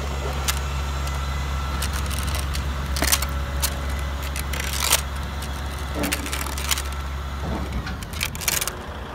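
Thin metal toy chain clinking and rattling as it is piled into the plastic cargo bed of a toy truck, in scattered clicks and short rattles over a steady low hum.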